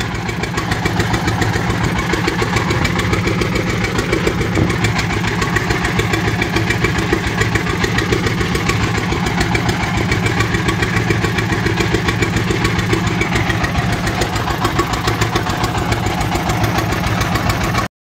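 Fishing boat's inboard engine running steadily with a fast, even chugging, loud and close. The sound cuts off abruptly just before the end.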